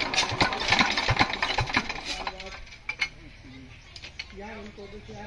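Diesel generator engine clattering with rapid knocks as it is cranked, dying away about two seconds in without catching, then a few scattered clicks. The engine will not start, a fault the mechanic traces to a leaking injector nozzle washer.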